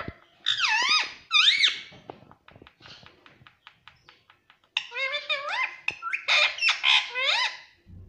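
Indian ringneck parakeet giving two bursts of high, swooping squeaky calls, with a run of soft quick clicks between them.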